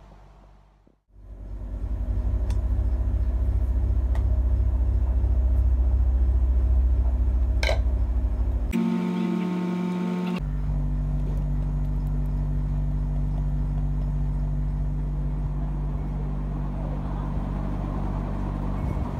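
A steady low mechanical hum with a strong deep drone. About nine seconds in, it gives way for a second and a half to a different, higher-pitched tone.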